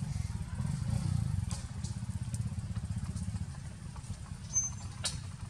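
Low, steady rumble of a running engine, with a few faint clicks.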